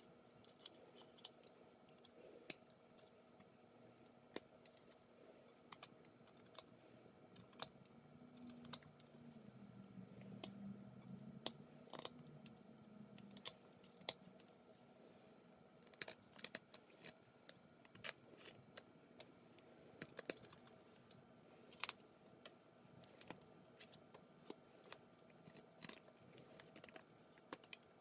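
Carving knife whittling a small wooden figure by hand: short, sharp, irregular clicks and snicks as the blade slices chips from the wood. A faint low hum runs for a few seconds midway.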